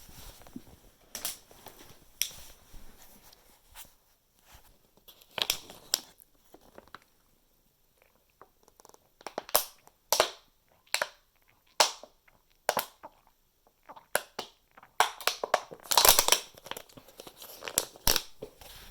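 Irregular crackling and crinkling noises: many short, sharp crackles in clusters, loudest about five seconds in and again in a dense run near the end.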